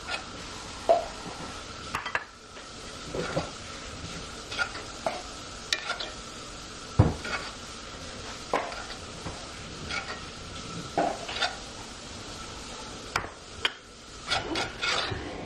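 A metal spoon scraping and clinking irregularly against a skillet while stirring and scooping a simmering cream sauce, over a steady sizzling hiss.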